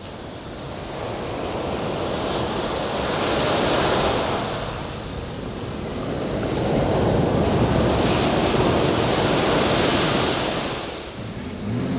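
Sea waves surging and washing back, swelling twice and fading.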